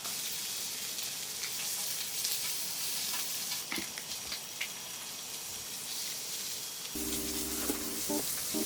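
Food sizzling on a hot cooking surface, a steady hiss with small crackles. Music comes in about seven seconds in.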